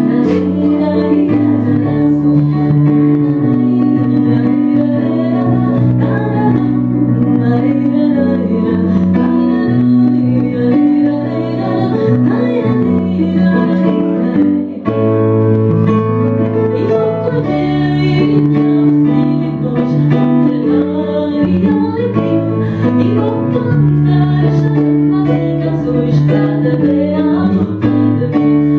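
A woman singing fado with piano accompaniment, holding long notes over piano chords, with a brief break about halfway through.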